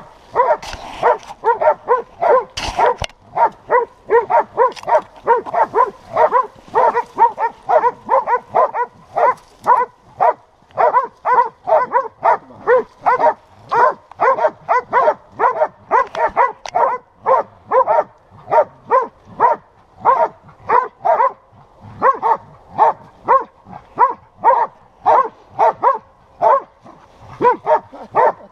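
Hunting dog barking steadily, about two barks a second without a break, baying a cornered wild boar.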